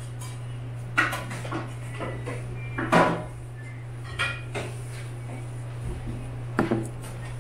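Plates and utensils clattering as food is dished up at a kitchen counter: a few sharp knocks, the clearest about one, three and six and a half seconds in, over a steady low hum.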